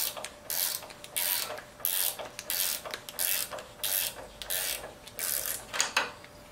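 Socket ratchet wrench clicking in short back-and-forth strokes, about two a second, as a bolt on the forklift's tilt cylinder mount is worked loose.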